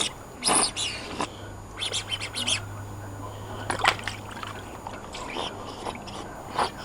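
A dog splashing in a shallow kiddy pool: a series of short, irregular splashes, with clusters about half a second in, around two seconds and just before four seconds.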